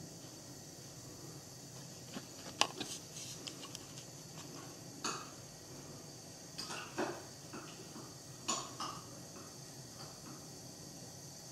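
Irregular light clicks and clinks of small hard objects over a steady faint hiss, the sharpest about two and a half seconds in, with more clustered later on.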